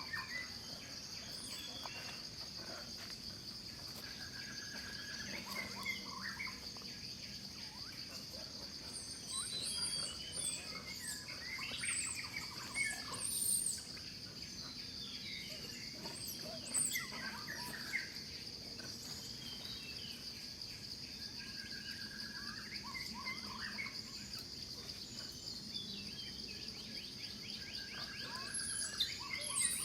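Natural outdoor ambience: a steady, high-pitched insect drone with many short bird chirps and whistled calls scattered over it.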